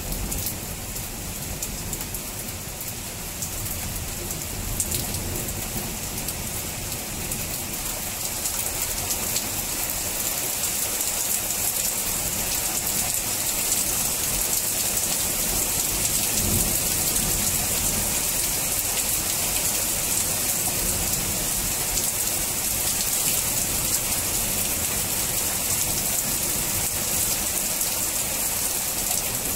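Thunderstorm rain pouring down steadily, growing louder about ten seconds in, with low rumbles of thunder.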